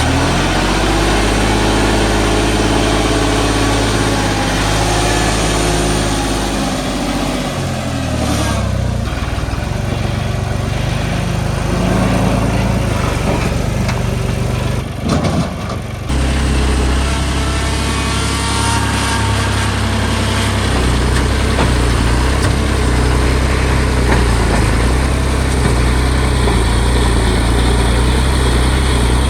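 Tractor diesel engine working a backhoe loader attachment. Its revs rise and fall over the first several seconds, dip briefly about halfway through, then hold steady.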